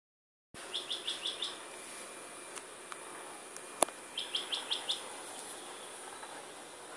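Bird chirping: two quick runs of about five high chirps, a few seconds apart, over a steady hiss. A single sharp click is heard about halfway through.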